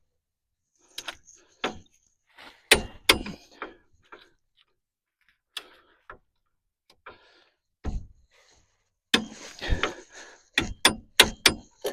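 Scattered sharp clicks and knocks of hand tools and parts being handled: two close together a few seconds in, a couple of single knocks, and a quick irregular run of them near the end.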